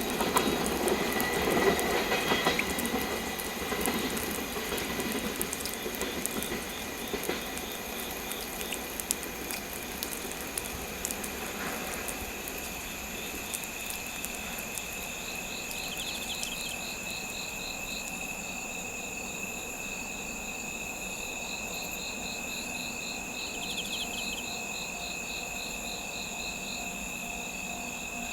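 Freight train of tank wagons rolling away, its wheel clicks and rumble fading over the first several seconds. Crickets and other night insects then chirp on their own, with steady high trills and pulsed chirps.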